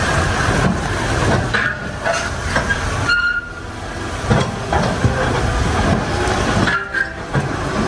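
Heavy trucks driving on a rough road, with a continuous rattling and clanking run of knocks, and a brief high squeal about three seconds in.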